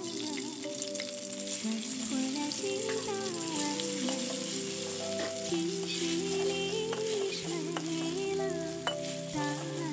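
Chilli paste frying with minced garlic and chillies in hot oil in a steel wok, a steady sizzle, stirred with a spatula, with occasional ticks. Background music with a melody plays over it.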